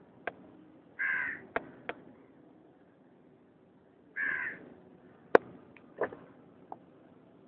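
A crow cawing twice, about three seconds apart, with several sharp clicks in between; the loudest click comes about two-thirds of the way through.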